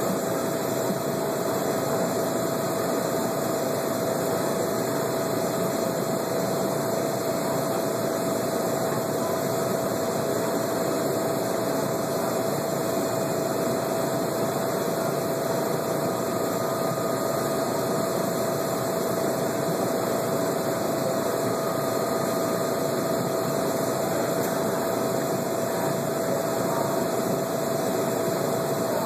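Steady mechanical hum and hiss of a live lobster tank's water-circulation and chilling equipment, with a constant mid-pitched whine running through it.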